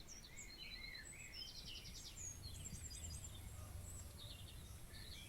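Several songbirds singing faintly: a mix of short chirps, whistled glides and quick trills from different birds, over a faint low rumble.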